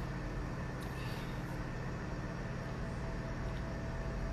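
Steady low hum and hiss of indoor room noise, even and unchanging.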